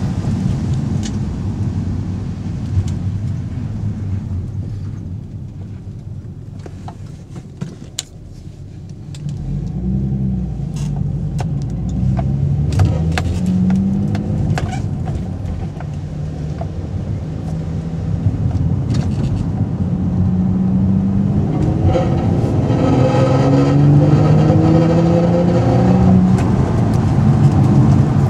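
Infiniti G35 coupe's 3.5-litre V6 running through newly fitted Kinetix high-flow catalytic converters, engine speed dropping and rising several times, with short sharp clicks of a rattle in the exhaust. The owner does not know what is causing the rattle.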